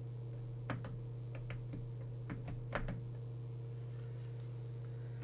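Several small clicks and knocks of hands handling bench equipment, spread over the first three seconds. Under them runs a steady low electrical hum.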